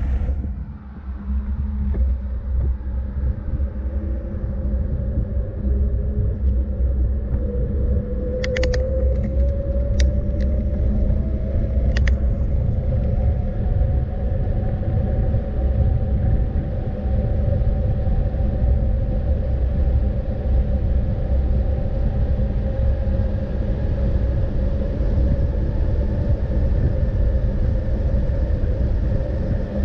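Motor vehicle running with a steady low rumble, its whine rising in pitch over several seconds as it picks up speed, then holding steady. A few short clicks sound between about 8 and 12 seconds in.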